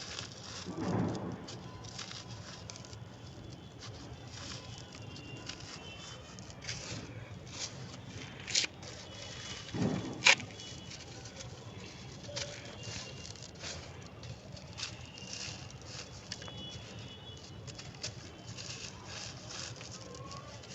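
Close-miked crumbling of a crunchy, brittle material: a steady run of small crackles and crunches, with two louder sharp crunches about halfway through.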